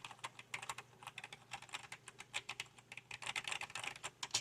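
Fast, continuous typing on a cheap stock desktop computer keyboard: a quick, irregular run of soft key clicks, several a second.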